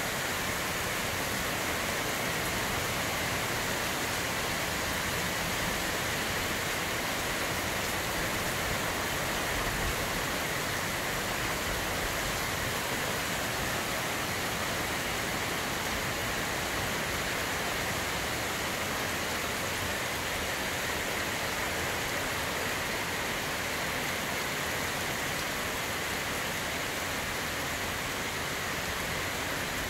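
Heavy rain pouring down steadily, an even rushing hiss.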